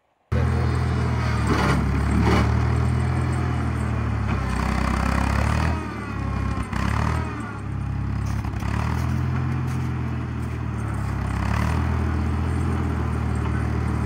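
Loader tractor's engine running steadily while it plows a path through a snowbank. The engine note dips for a moment about six seconds in, and there are a few knocks.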